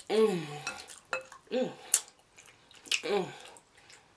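A woman humming three short 'mmm's of enjoyment, each falling in pitch, while she gnaws and sucks meat off a braised pig foot, with wet lip-smacking and sharp mouth clicks in between. The loudest click comes about two seconds in.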